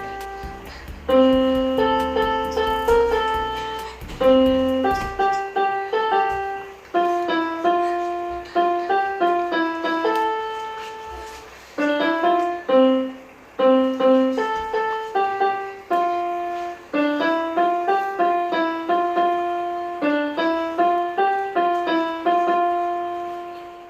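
Electronic keyboard playing a melody in a piano voice: separate sustained notes, sometimes two together, that fade out at the end.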